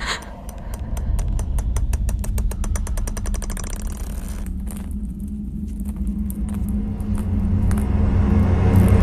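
A low, steady rumbling drone with a run of sharp clicks that speed up over the first four seconds, then the drone swells louder near the end.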